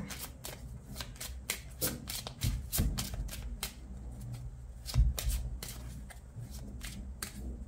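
A deck of fortune-telling cards being shuffled by hand: a quick, irregular run of card clicks, with a few louder knocks.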